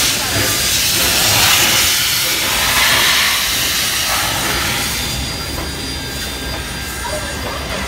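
NSW 32 class 4-6-0 steam locomotive 3265 moving past, steam hissing from its open cylinder drain cocks, with the hiss strongest in the first few seconds and easing as its carriages roll by with a low rumble.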